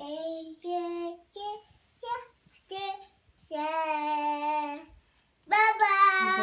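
A toddler singing a string of short sung notes, then a long held note in the middle and a louder, bending note near the end.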